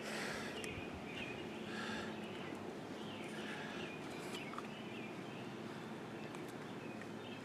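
Birds chirping repeatedly over a low steady hum, with a few short rustling scrapes as the extension cord's outer jacket is cut with pliers, the strongest right at the start.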